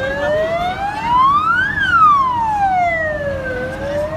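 Emergency vehicle siren sounding a slow wail: its pitch rises for nearly two seconds, falls back over the next two, and starts to rise again near the end. A low, steady rumble lies beneath it.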